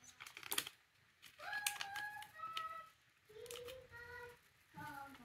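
A female voice singing a few long, held notes in the background, with a few light clicks near the start.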